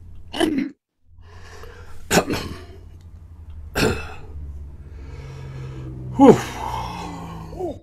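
A man coughing: four short, separate coughs spread over several seconds, the last one louder and voiced.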